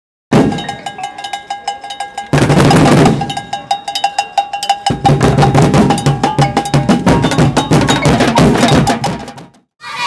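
Percussion music played in a fast, dense rhythm: many drum strikes with a steady ringing metallic bell-like tone over them. It starts suddenly, gets louder about two seconds in, and cuts off just before the end.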